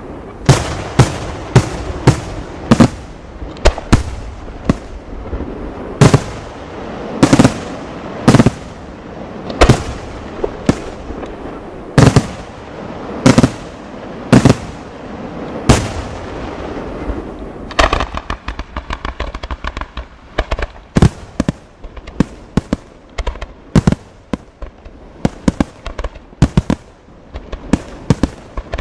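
Aerial fireworks shells bursting in a steady series of loud bangs, about one or two a second, with a rumble between them. About eighteen seconds in, the big bangs give way to a dense run of smaller, quicker cracks.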